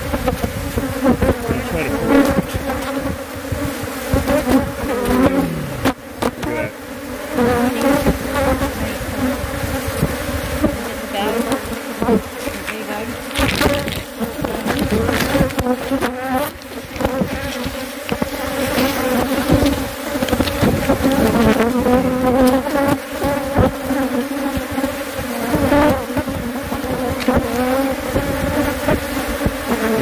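Loud, steady buzzing of a swarm of Africanized ("killer") honey bees, agitated and defensive as their hive in a metal pipe is torn open. A few knocks from the handling come through over the buzz.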